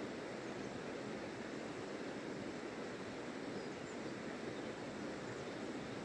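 Shallow river flowing over stones: a steady rushing and babbling of water.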